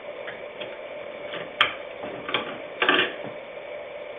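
A few sharp clicks, about a second and a half in and again near two and a half seconds, then a short clatter near three seconds, as a computer memory module is unclipped from its slot and lifted out, over a faint steady hum.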